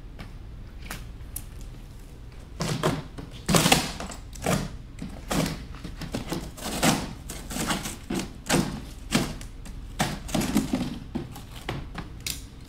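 Utility knife sawing through the side of a corrugated cardboard shipping box. From about two and a half seconds in, it makes a run of short cutting strokes, roughly one or two a second.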